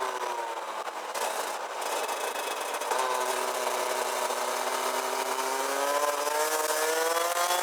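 Rotax Max DD2 kart's 125 cc single-cylinder two-stroke engine, heard onboard. The revs drop off, then from about three seconds in the engine pulls hard with its pitch rising steadily.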